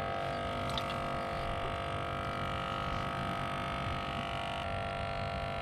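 Steady electric hum from a small motor, made of several held tones, with a slight change in pitch about four and a half seconds in.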